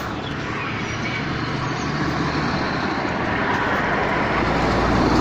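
Refinery flare stack roaring with steam injection, a steady rushing noise like a jet taking off, growing steadily louder, with a low hum joining in near the end.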